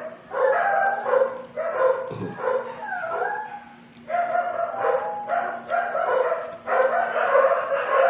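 A dog whining and yipping, in short high-pitched calls that rise and fall one after another, with a short lull about four seconds in. A faint low steady hum runs underneath.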